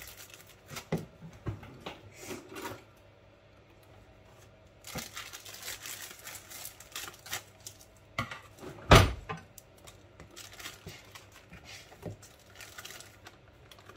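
Crinkling and rustling of a baking-mix packet being handled and cut open with scissors over a plastic mixing bowl, with scattered light clicks and taps. One sharp knock about nine seconds in is the loudest sound.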